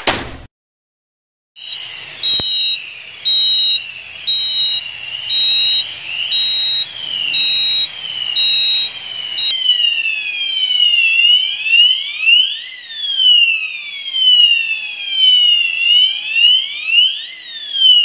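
Fire alarm sounders going off during a test of an Asenware addressable fire alarm system. At first a falling sweeping tone repeats about every 0.7 s together with a pulsing high beep. About halfway in, several sounders' rising and falling sweeps overlap out of step and the beep stops.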